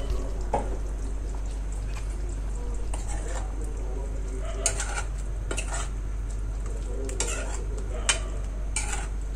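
A steel spoon stirring chicken in a thick creamy curry in a pan, scraping and clinking against the pan several times, mostly in the second half.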